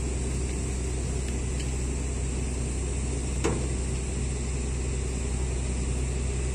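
Steady low engine drone running without change, with a single sharp click about three and a half seconds in.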